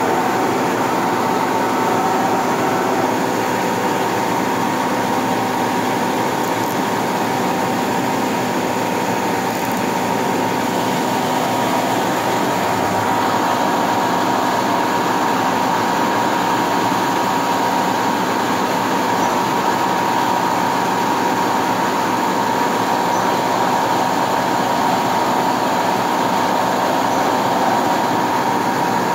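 CNC lathe running a turning cycle: the spindle spins a metal part while a turret-mounted tool cuts it under flood coolant. A steady machine noise with a constant high whine.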